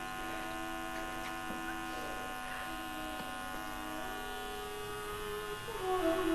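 Steady electrical mains hum with a buzz of many high steady tones. Beneath it, faint held tones step in pitch every second or so, growing louder near the end.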